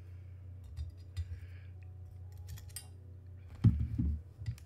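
Small metal parts and hand tools clicking and clattering at the workbench while an airsoft gearbox is being stripped, with a louder run of knocks and clatter about three and a half seconds in. A steady low hum runs underneath.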